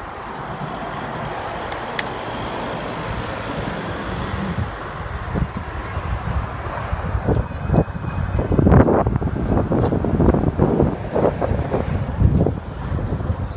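Road traffic noise, then wind buffeting the microphone, with irregular gusty thumps through the second half.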